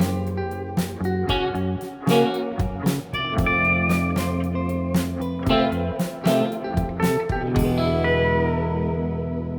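Background music: electric guitar with a steady beat, ending on a held chord that fades out over the last couple of seconds.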